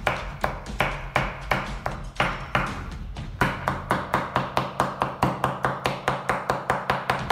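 Large kitchen knife chopping soft roasted green peppers on a wooden cutting board, each stroke a sharp knock of the blade on the board. The strokes come at a steady rhythm, about two or three a second at first, then quicker, about four a second, from about halfway through.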